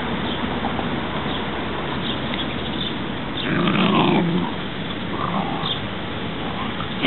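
Welsh Terrier growling as it gnaws and tugs at a branch: one louder growl about three and a half seconds in, lasting about a second, with a few fainter grumbles after.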